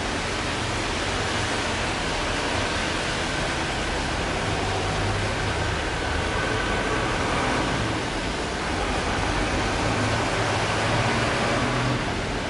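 Steady hiss of road traffic on wet streets, tyres swishing on the wet asphalt over a low engine hum from passing vans and cars, the hum swelling slightly a few times as vehicles go by.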